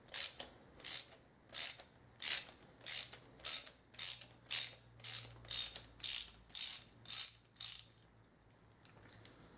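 Ratcheting socket wrench loosening a bolt, each swing back giving a short burst of pawl clicks, about one and a half strokes a second. About fourteen strokes, stopping shortly before the end.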